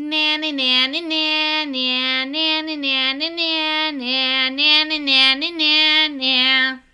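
A woman singing a vocal warm-up exercise: a short run of notes on a vowel, stepping up and down within a narrow range and repeated several times. It stops just before the end.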